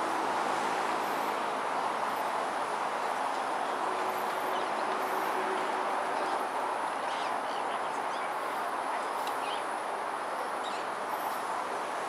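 Steady roar of distant city traffic, easing off slightly toward the end, with a few faint bird chirps.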